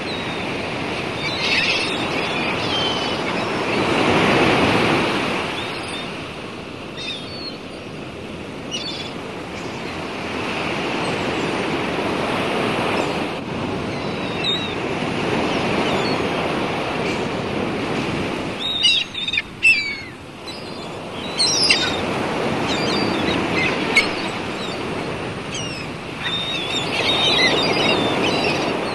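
Sea waves washing in slow swells that rise and fall every few seconds, with short high bird calls now and then, clustering about two-thirds of the way through.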